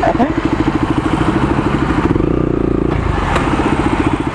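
Single-cylinder KTM Duke motorcycle engine idling close by with a steady rapid pulse. Its note changes briefly about two seconds in.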